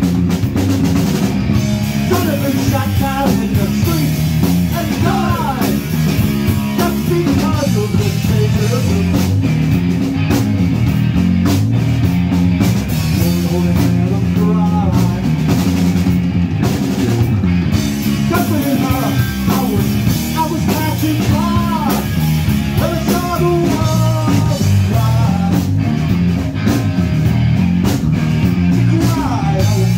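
Live punk rock band playing loud, with drum kit, guitar and bass, and a singer's voice coming in and out over the band.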